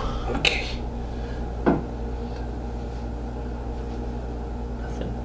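A single short knock on the tabletop about a second and a half in, over a steady low hum.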